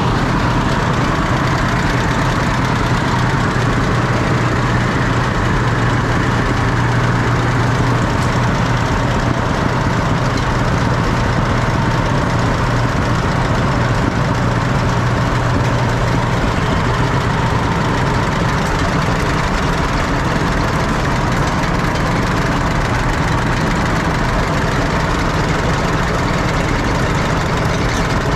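Antique farm tractor engine idling steadily.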